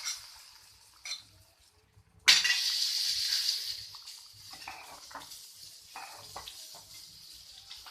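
Hot oil tempering of fried shallots and curry leaves poured into a simmering fish curry: a sudden loud sizzle about two seconds in that dies down to a softer steady hiss, with a few clinks of the pan and spoon.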